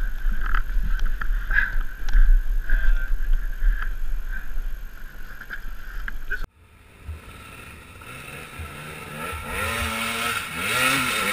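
Low rumble with scattered knocks close to a helmet camera. After a sudden cut, an enduro dirt bike's engine revs up and down repeatedly as it climbs a forest trail.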